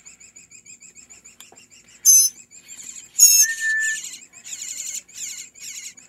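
Nestling songbirds calling: a fast, even run of high cheeps at about six a second, with louder, shrill begging calls breaking in about two, three and five seconds in.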